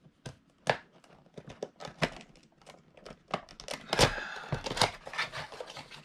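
Small cardboard toy box being opened by hand: flaps and tape pulled loose, with scattered crinkles and sharp clicks, the loudest about four seconds in.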